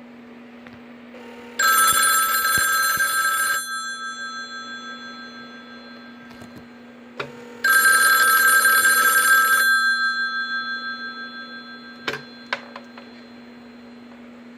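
1976 Stromberg-Carlson rotary phone's bell ringing twice, each ring about two seconds long and fading out afterwards, the on-off cadence of an incoming call. A steady low hum lies underneath, and a few light clicks come near the end.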